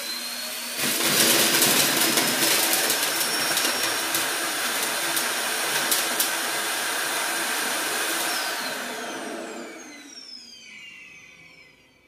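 Roomba i3+ Clean Base self-emptying dock's suction motor emptying the robot's dustbin. Its whine rises, then a loud rush of air opens about a second in, with debris ticking through. It winds down with a falling whine near the end.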